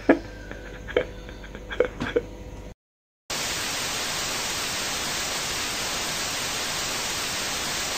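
Television static sound effect: a steady, even hiss that starts abruptly a little over three seconds in, after a brief gap of dead silence.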